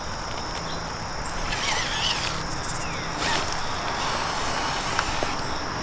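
RC rock crawler working its way over rock: a faint electric-motor hum, with a few short scrapes and clicks of tyres and chassis on stone. A steady high drone of insects sits under it.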